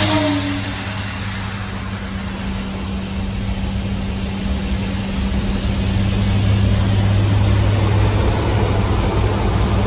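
C-130 turboprop engines and propellers droning steadily, heard inside the cockpit: a deep steady hum with a second tone above it, over rushing air noise. A brief falling sweep right at the start, and the noise grows somewhat louder from about six seconds in.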